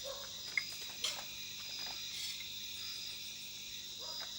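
Night insects chirring steadily in a high pitch, with a couple of faint clicks about half a second and a second in.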